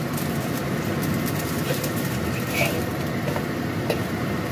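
Minced fish-paste patty sizzling steadily in shallow oil in a steel wok over a gas flame at medium heat, with a few short faint high blips in the middle.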